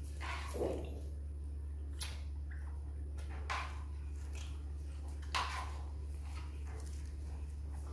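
Baby monkey drinking milk: a few short wet squishing sounds, a second or two apart, with a sharp click about two seconds in, over a steady low hum.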